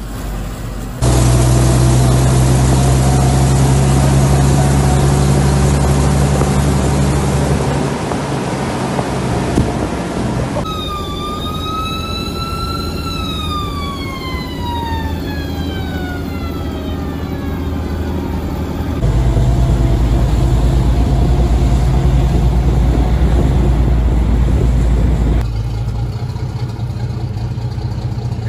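Heavy military truck engine of a Pacific tractor running as it drives, a steady low hum that changes abruptly at several cuts. In the middle a high whine rises slightly, then falls away over about four seconds.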